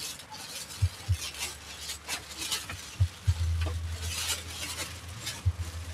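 Busy street-market bustle: irregular dull thumps and light clatter, with a steady low hum coming in about halfway through.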